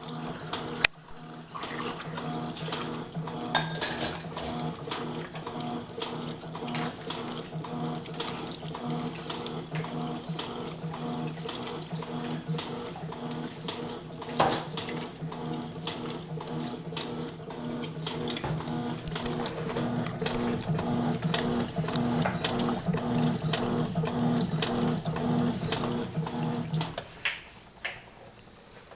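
Electrolux LM06 washing machine running its wash cycle: a steady motor hum that pulses about twice a second, with clicks and churning noise over it. The hum stops suddenly about two seconds before the end, leaving a few clicks.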